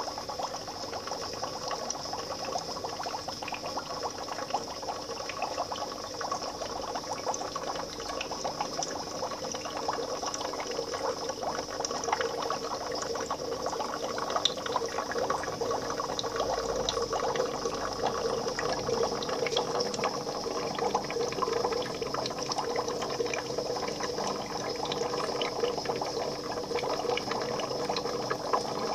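Fish-tank water bubbling and trickling steadily, full of tiny crackles, over a steady hum.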